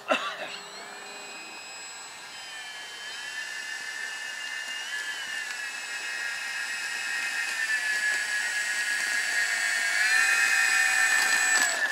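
Radio-controlled model Corsair's motor and propeller whining steadily as it taxis on grass. The pitch rises and dips slightly a few times, and the sound grows louder as the plane comes closer.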